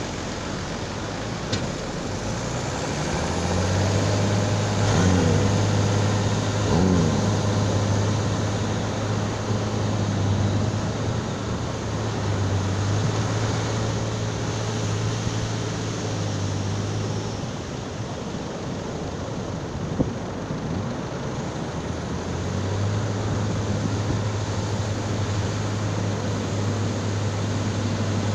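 Farm tractor's diesel engine working steadily as it pushes a boat trailer into the surf, its note swelling and falling back twice about five and seven seconds in, over a constant wash of breaking waves. Past the middle the engine drops away for a few seconds, and a single sharp knock sounds then.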